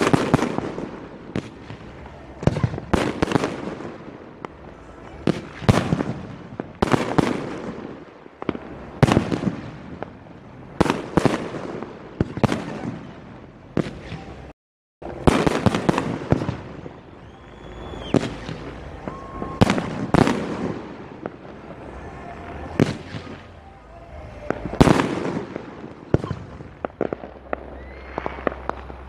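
Aerial fireworks shells bursting overhead one after another, a sharp bang every second or two, each followed by a rumbling echo. The sound cuts out completely for a moment just before halfway through.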